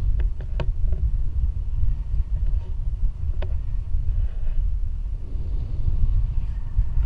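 Wind buffeting a camera microphone in flight under a tandem paraglider: a low rumble that rises and falls unevenly. A few light clicks sound near the start and once about three and a half seconds in.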